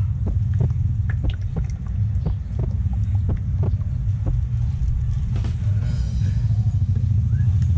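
Gear oil glugging out of a plastic bottle into a plastic bag, with many short irregular ticks and plastic crinkling, over a steady low rumble.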